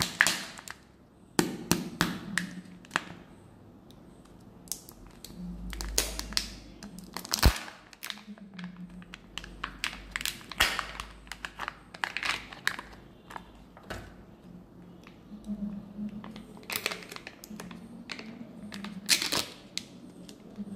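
A Kinder Joy egg being opened by hand: its foil-and-plastic wrapper and the foil seal on the plastic cream tray crinkle, crackle and tear, with sharp irregular clicks and taps from the plastic shell being handled.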